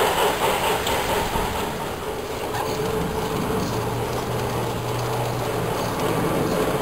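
G-scale garden-railway freight train running along its track: a steady rolling noise of wheels on rail and the locomotive's motor, with a low hum for a couple of seconds in the middle.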